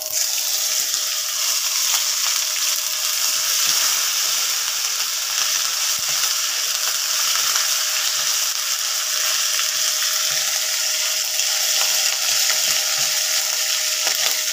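Ginger paste frying in hot oil with whole spices (cumin seeds, dried red chillies, bay leaves) in a nonstick kadai: a steady, even hiss and sizzle. A spatula stirs through it with occasional light scrapes and knocks.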